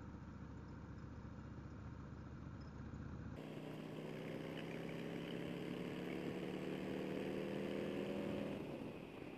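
Harley-Davidson Road King Special's V-twin engine with Vance & Hines slip-on exhausts running under way. From about three and a half seconds in, the engine note climbs slowly, then drops away near the end as the throttle is eased or a gear is changed.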